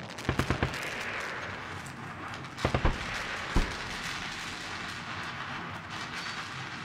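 Gunfire in combat: a quick burst of about five shots near the start, a few more shots a little before the middle, then a single sharp report, all over a steady hiss of background noise.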